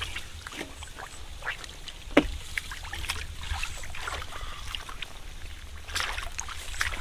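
Shallow muddy water splashing and sloshing as hands scoop through it and catfish thrash in the shallows: a run of short, irregular splashes and slaps, the loudest about two seconds in.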